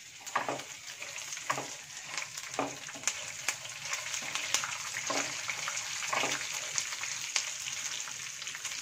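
Hot oil sizzling and crackling in a nonstick kadai as freshly added green chillies and curry leaves fry in a tempering of peanuts, dals and dried red chillies. A wooden spatula stirs and scrapes roughly once a second. The sizzle grows louder soon after the start.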